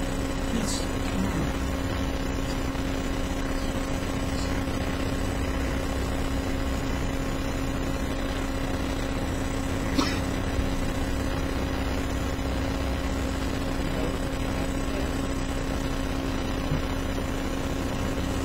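Steady hum and hiss of room tone on an open microphone, with a steady low tone, and one sharp click about ten seconds in.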